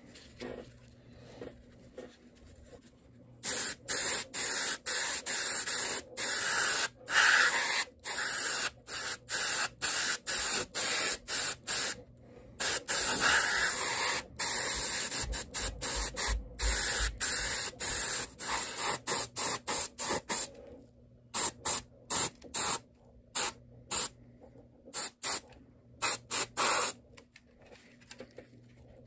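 Airbrush spraying paint in many short hissing bursts, stopping and starting as the trigger is worked, while a base coat goes onto a model. It starts about three seconds in, and the bursts become shorter and more spaced out near the end.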